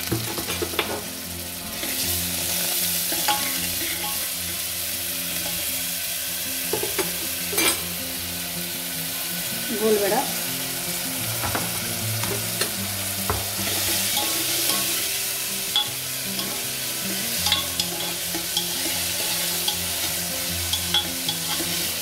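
Chillies, onion and garlic-ginger paste sizzling steadily in hot oil in a pan as the tempering for dal fry is stirred, with occasional sharp clicks and scrapes of the spoon against the pan.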